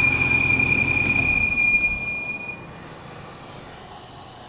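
A 2014 Bentley Continental GT engine running with a loud, steady, shrill whistle; the engine rumble and then the whistle die away about two seconds in. The whistle is excessive crankcase vacuum pulling air past the engine's oil seals, like a reed on a clarinet: a crankcase ventilation (PCV) fault.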